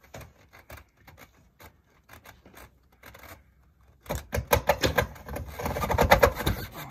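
Insulated stainless steel chimney pipe scraping and rattling as it is lowered down through the hole in a metal roof: faint rustling at first, then from about four seconds in a loud, rapid clatter of scraping and knocks until near the end.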